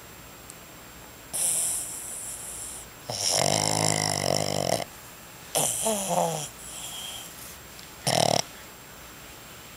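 Boston Terrier snoring in its sleep: four irregular snores spaced a second or two apart. The longest lasts about a second and a half with a buzzing tone, and the last is a short snort.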